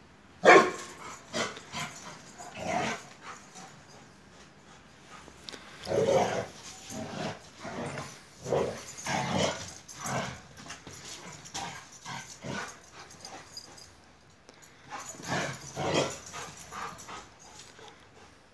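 Large Turkish shepherd dogs, Akbash and Kangal, barking in rough play while wrestling. The barks come in clusters of short sharp bursts with quieter gaps between, the loudest right at the start.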